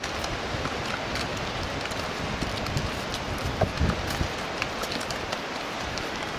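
Hooves of loaded pack animals clattering and scraping on a rocky trail: irregular sharp clicks over a steady hiss.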